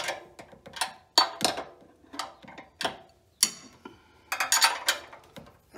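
Hand tool tightening a bolt on a generator's steel bracket: a string of sharp, irregular metal clicks and clinks, coming faster about three-quarters of the way through.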